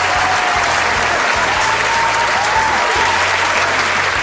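Crowd applause, a steady dense clapping that holds at an even level throughout, with faint tones running underneath.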